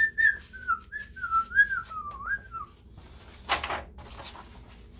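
A person whistling a short, wandering tune that ends a little before halfway through, then a short rustle of paper as a page is turned.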